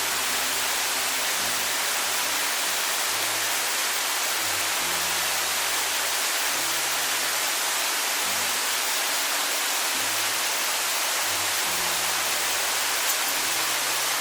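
A waterfall's rushing water, heard as a steady, even wash of noise, with soft background music of low sustained notes underneath.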